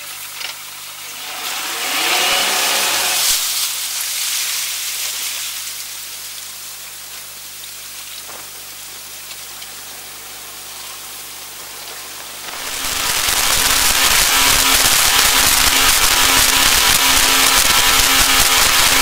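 RNLI inshore lifeboat's outboard engines running slowly as it pulls away from the pontoon, over a hiss of water. About two-thirds in they open up to full throttle: a loud, steady engine drone with a heavy rush of wind and water past the boat-mounted microphone.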